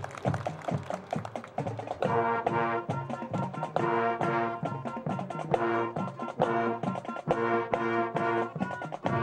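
High school marching band playing its field show. Drum hits alone at first, then the brass section comes in about two seconds in with loud, repeated chords over the continuing drum beats.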